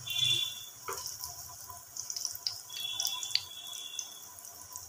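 Potato pakoras frying in shallow oil in a pan, with small scattered crackles and pops.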